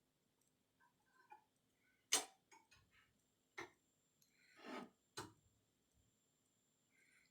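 A few sharp clicks and knocks of tools and small metal parts being handled, with one short scrape between them.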